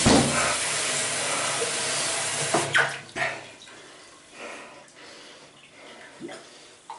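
Water running in a bathroom for about three seconds, then cut off, followed by a couple of short clicks and faint movement.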